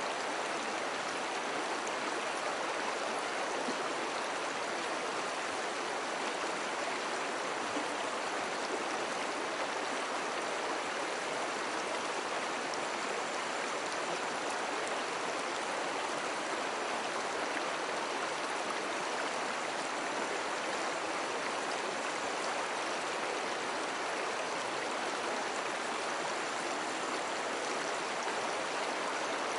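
Slow river water flowing over stones, a steady, unbroken rush and babble.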